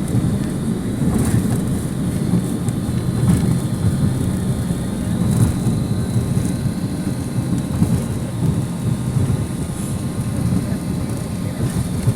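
Airbus A320 cabin noise during landing: a steady, loud low rumble of engines and airflow with a faint high whine.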